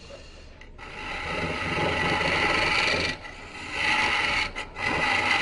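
Turning tool cutting into green persimmon wood spinning on a Jet Mini lathe, hollowing the inside of a goblet's cup: a steady scraping hiss of shavings coming off. It starts about a second in, breaks off briefly around three seconds, then carries on.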